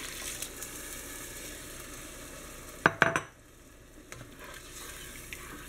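Beef broth poured into a hot pot of seared beef and onions, hissing and sizzling as it hits the pan, with a sharp ringing clink against the pot just before three seconds in. The sizzle drops away briefly after the clink, then picks up again with a few small ticks.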